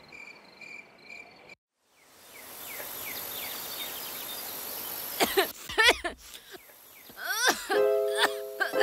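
Crickets chirping in a steady pulsing rhythm, cutting out about a second and a half in. After a brief gap comes an outdoor ambience with a high steady hiss and scattered chirping calls. Near the end, slow plucked-string background music begins.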